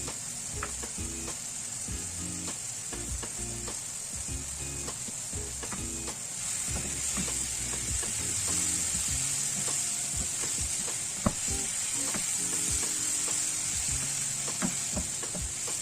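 Bitter gourd stir-fry sizzling steadily in a hot pan, with a spatula clicking and scraping against the pan as it is stirred. The sizzle grows louder about six seconds in, and there is a sharper knock a few seconds later.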